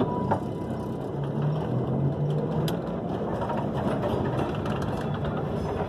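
Historic electric tram running past close by: steel wheels rolling on the rails with clicks and rattles from the running gear, and a low hum for about two seconds starting around a second in.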